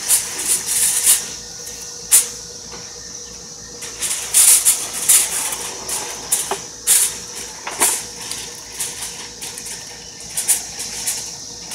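Aluminium foil crinkling and rustling in bursts as a foil-covered pan is handled and set down on a gas grill's grate, with a sharp tap about two seconds in, over a steady high hiss.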